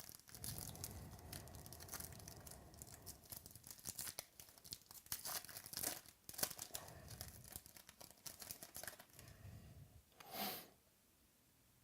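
Wrapper of a trading-card pack being torn open and crinkled by hand, with irregular crackling and rustling. A brief louder rush comes about ten and a half seconds in, then the rustling stops.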